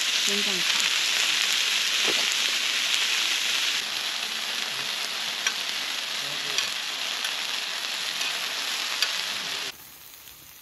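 Food sizzling and frying hard in a hot pan, a steady hiss with a few sharp pops of spitting fat; it stops abruptly about a second before the end.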